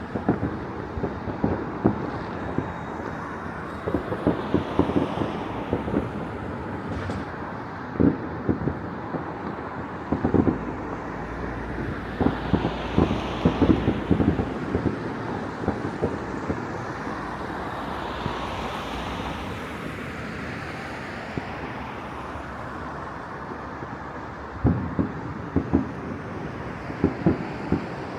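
Fireworks going off across a city at a distance, irregular bangs and pops, with busier clusters about a third of the way in, around the middle and near the end, over a steady rumble of city traffic.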